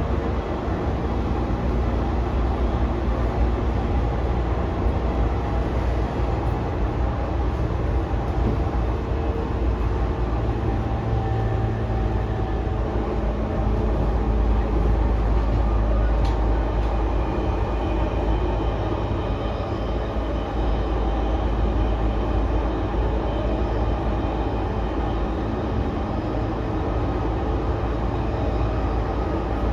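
Cabin running sound of a JR East E233 series 2000-subseries electric train with a Mitsubishi IGBT VVVF inverter: a steady rumble of wheels and traction motors under way. A faint steady whine joins in the second half.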